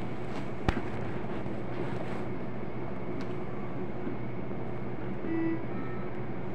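Steady low hum of a running hemodialysis machine, with one sharp click about 0.7 seconds in and a short tone a little over five seconds in.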